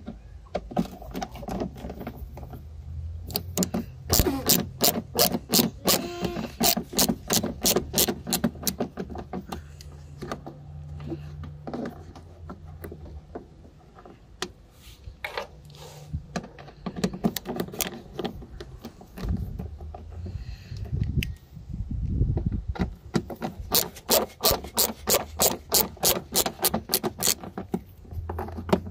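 Hand ratchet clicking in quick runs of about three clicks a second as a bit driver turns self-tapping screws in the plastic wheel-arch lining, with a pause in the middle.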